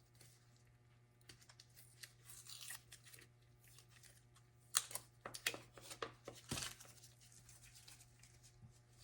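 Faint handling noises: a few short scraping, tearing-like rustles of armor parts being handled, the loudest about five seconds in and again around six and a half seconds, over a faint steady low hum.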